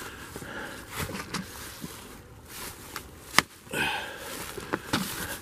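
Footsteps crunching and rustling through frosted dry grass and brush, with a single sharp click about three and a half seconds in.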